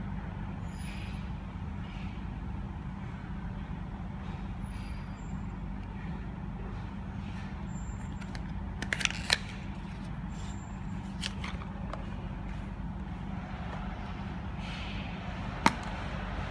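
Steady low rumble with a few sharp clicks and taps of plastic packaging being handled: a cluster about nine seconds in, two more a little later, and one loud sharp click near the end.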